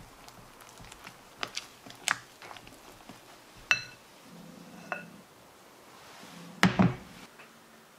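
Silicone spatula folding thick genoise batter in a glass mixing bowl: soft squelching with scattered taps and scrapes against the glass, two of which ring out like a glass ping. Near the end a louder double knock as something is set down on the counter.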